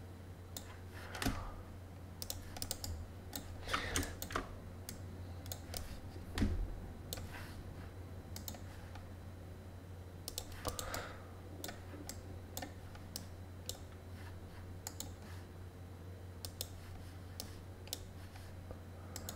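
Irregular computer mouse clicks and keyboard key presses, over a steady low hum. One louder dull knock about six seconds in.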